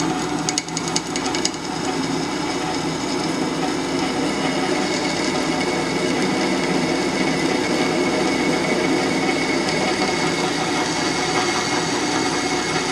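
Power drill running steadily while boring 1/4-inch holes through a steel plate, with a run of rapid clicks in the first second and a half.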